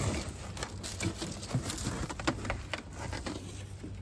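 Plastic wrap crinkling and a cardboard box rustling as a tail light is unpacked by hand, with irregular crackles and light knocks.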